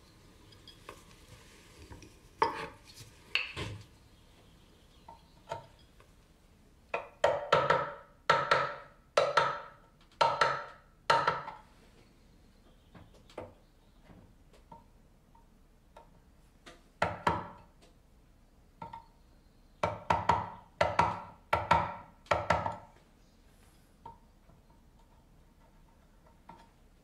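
Woodworking hand tool working a wooden board in sharp strokes: two single strokes, then a run of about five roughly a second apart, a lone stroke, and a run of four.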